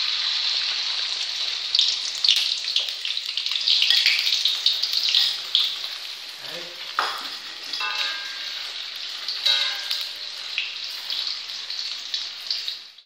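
Beaten egg sizzling in a hot oiled wok. The sizzle is loudest as the egg is poured in and gradually eases as it sets. A few scrapes and clinks of a spatula against the wok come in the second half.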